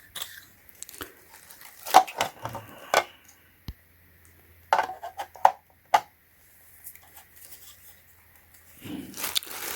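Hard plastic parts of a submersible pond pump clicking and knocking as they are handled and pried apart, in a series of separate sharp clicks with a cluster near the end.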